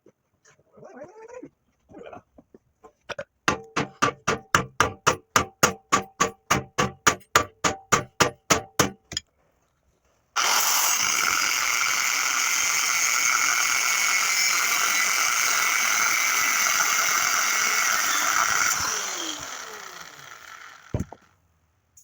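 A run of about two dozen sharp knocks, about four a second. Then an angle grinder cuts through steel plate with a loud, steady noise and winds down near the end, its pitch falling as the disc spins down.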